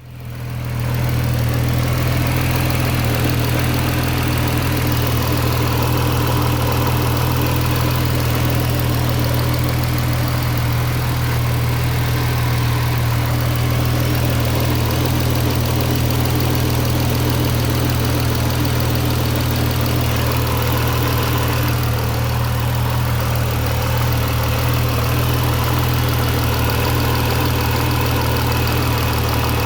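Lotus Exige 380 Cup's supercharged 3.5-litre V6 idling steadily with a rattle, which the owner first took for the supercharger pulley but now thinks comes from the supercharger unit itself.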